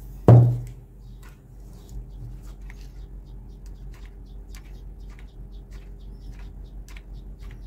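A single thud about a third of a second in, then a run of faint small clicks and squeaks from handling a cardboard plate and working a hot glue gun, over a faint steady low hum.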